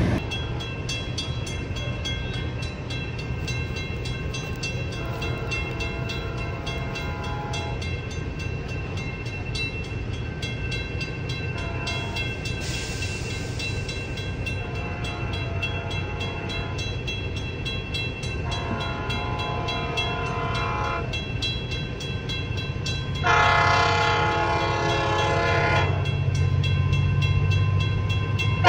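Horn of an approaching train sounding a series of separate blasts, the blast about 23 seconds in clearly the loudest and longest. A low rumble of the oncoming train builds under it near the end.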